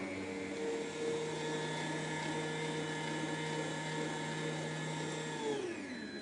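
Electric stand mixer's meat-grinder attachment running steadily as it minces meat with onion and parsley. Near the end it is switched off and the motor's whine falls in pitch as it winds down.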